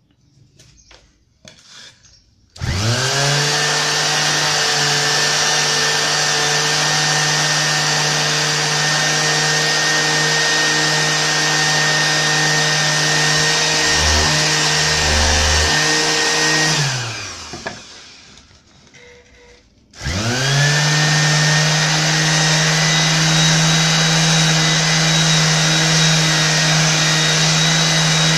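Bosch GSS 2300 electric orbital sander switched on and spinning up to a steady motor hum and whine as it sands a wooden board. About two-thirds of the way through it is switched off and winds down, then it is switched on again a few seconds later and runs steadily.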